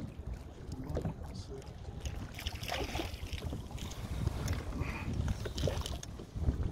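Wind buffeting the microphone in a low rumble, with water lapping at a kayak and scattered small knocks and splashes.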